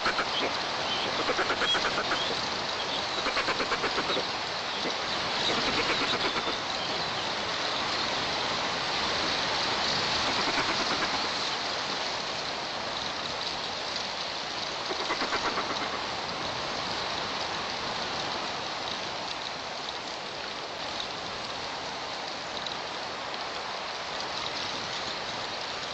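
Strong wind blowing steadily over the nest-cam microphone in a pine, with a few short runs of rapid pulsed bird calls in the first half.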